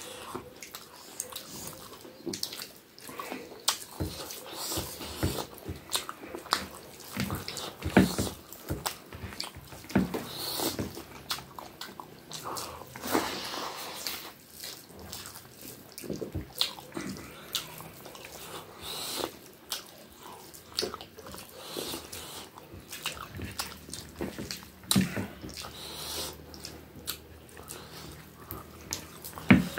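Close-up eating sounds of someone eating chicken curry and rice by hand: irregular wet chewing and lip smacks, with squelches of fingers mixing rice into the gravy.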